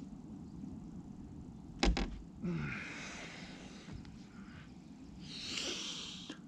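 A single heavy thump about two seconds in as a man clambers up through a yacht's forward deck hatch, followed by brief scuffing and rustling of his movement.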